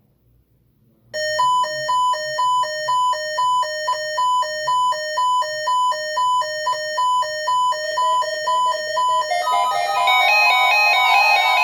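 Weather radio alert alarm during a required weekly test: loud electronic beeps alternating between a lower and a higher pitch, about two a second, starting about a second in. Near the end several steady tones join in, making a dense, held chord of tones.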